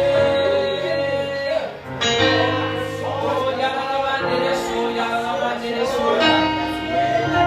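Gospel worship music: held keyboard chords that change about every two seconds, with wordless singing gliding over them.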